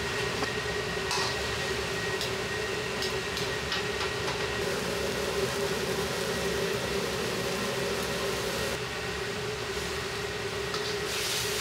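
Steady roar of a commercial wok range's gas burner and the kitchen exhaust hood, with a low hum running under it. A few light clicks of a ladle on the wok come through, and a brighter sizzling hiss rises near the end.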